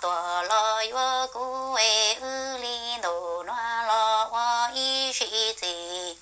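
A woman singing unaccompanied in Hmong: short phrases of long held notes that step up and down in pitch, with brief breaks between them.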